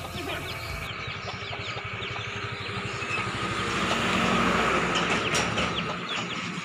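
A motor vehicle engine passing by, growing louder to a peak about four to five seconds in, then fading away.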